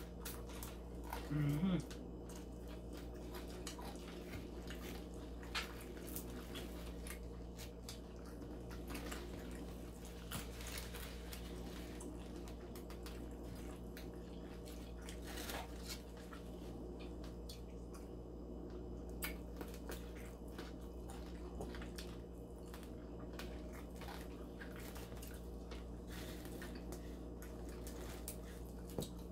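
Close-miked eating sounds of chicken wings and pizza being chewed: scattered soft clicks and smacks of chewing and finger-licking over a steady low hum, with a brief hummed "mm" about a second and a half in.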